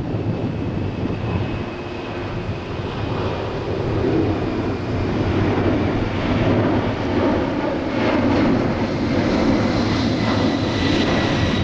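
Airbus A340-300 airliner climbing out after takeoff: a steady jet roar from its four CFM56 turbofans with a thin high whine, a little louder from about four seconds in.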